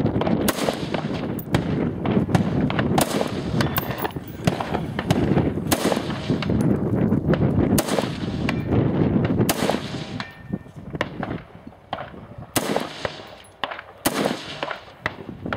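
AR-15 rifle in 5.56 firing a slow string of single shots, about ten in all, one every second or two, as targets are engaged from a rest.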